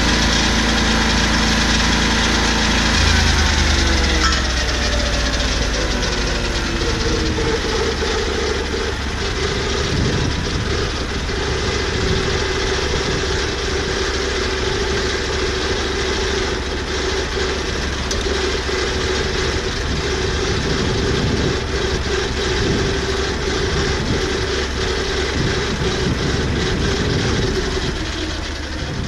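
Engine of a Lucas portable swing-blade sawmill running; its pitch drops a few seconds in, then it holds a steady note with a rough, noisy layer over it until near the end.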